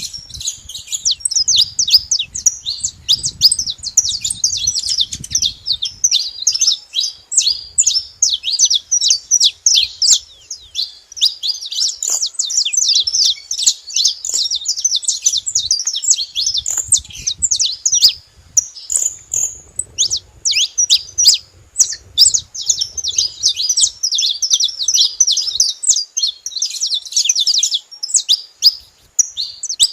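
Several saffron finches chirping together: a dense, continuous chatter of rapid, high, overlapping chirps.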